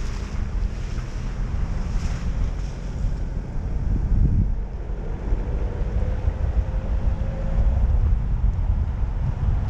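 Wind buffeting the microphone of a camera mounted outside a moving car, over the low rumble of the car driving.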